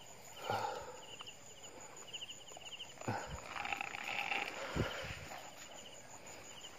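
Rustling of wet grass being pushed aside and walked through, with a dull thud near five seconds in. A high chirping call repeats in short trills throughout.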